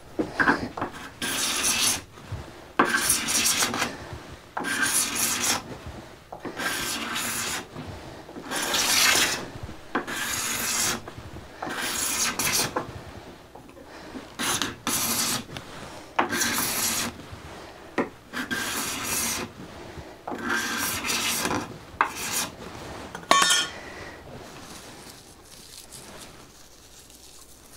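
Freshly sharpened steel card scraper cutting shavings from the side grain of a board in repeated strokes, about one a second, then stopping a few seconds before the end. The crisp cutting sound is the sign of a sharp scraper edge, like cutting with a sharp knife rather than a dull one.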